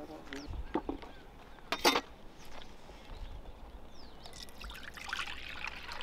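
Buttermilk (chaas) pouring from a steel pitcher into a steel bowl, a frothy splashing pour in the second half. Before it come a couple of sharp knocks, the loudest about two seconds in.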